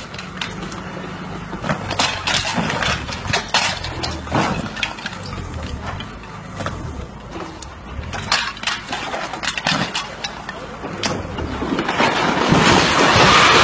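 Excavator's diesel engine running while the machine tears at a stone barn, with repeated cracks and crashes of breaking masonry and timber. About twelve seconds in these grow into a loud, continuous crashing as the building collapses.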